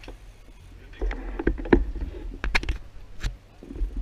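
Scattered sharp clicks and knocks from road bicycles and cycling shoes close to the microphone, over a low rumble and faint voices.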